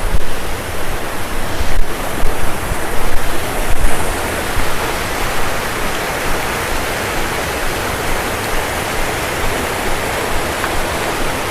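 Rushing water of a monsoon-swollen river, a steady loud wash of flowing water, with uneven low bumps in the first four seconds.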